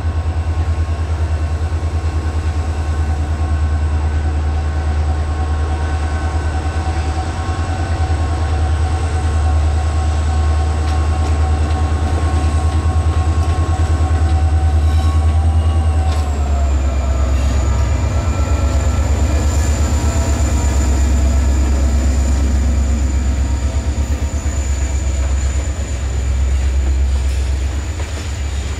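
Renfe class 333 diesel locomotive hauling a container freight train past at speed, its engine a steady low pulsing drone with a whine above it. The whine drops in pitch about halfway through as the locomotive goes by, and the train's wagons then roll past with a rumble of wheels on the rails.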